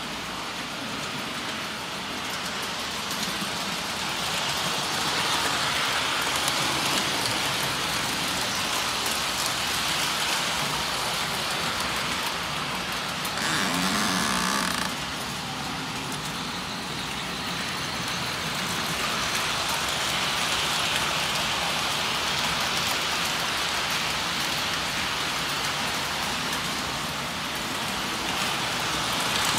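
Standard gauge tinplate toy trains running on the layout's metal track: a steady running noise of wheels on rails. About halfway through, a brief pitched sound rises over it for a second or so.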